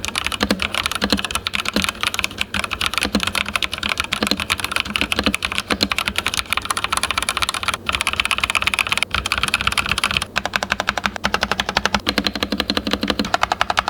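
Fast continuous typing on a Zifriend T62 compact mechanical keyboard, many key clicks a second.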